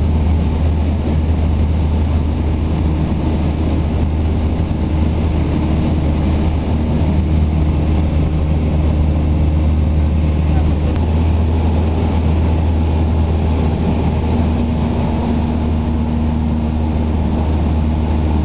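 A single-engine Cessna's piston engine and propeller droning steadily, heard from inside the cabin in flight.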